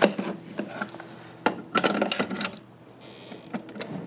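A run of plastic and metal clicks and knocks as an 8-track tape deck and cartridge are handled, over a low steady hum.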